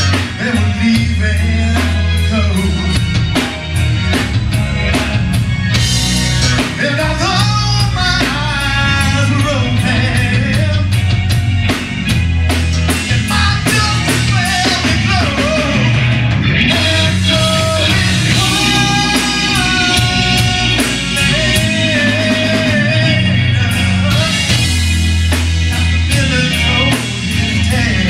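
Live rock band playing: electric guitar, drum kit, bass guitar and keyboard at a steady beat, with a man singing lead into a handheld microphone through the middle of the stretch.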